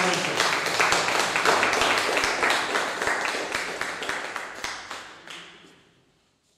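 Small audience applauding, individual hand claps distinct, fading out near the end.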